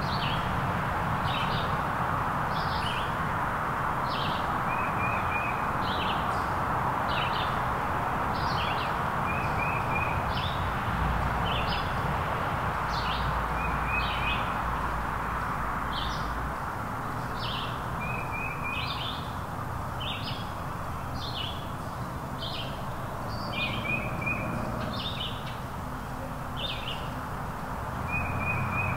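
Songbirds chirping: short high notes a little more than once a second, with a brief trill every few seconds, over a steady hiss of woodland background noise.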